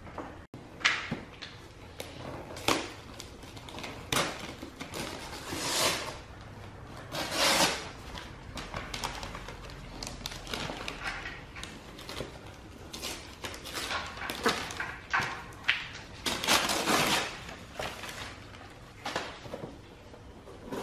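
Wrapping paper being torn and crumpled as a Christmas present is unwrapped, in a series of short rustling bursts.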